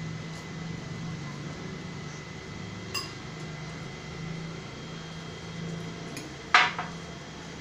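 A drinking glass set down on the table with a sharp clink about six and a half seconds in, then a smaller knock right after. A light click of tableware comes about three seconds in, over a steady low hum.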